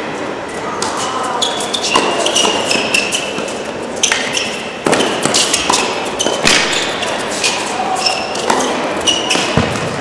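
Tennis ball struck by rackets and bouncing on an indoor hard court during a doubles rally: a run of sharp hits about every second, echoing in a large hall, with short high squeaks of shoes on the court between them.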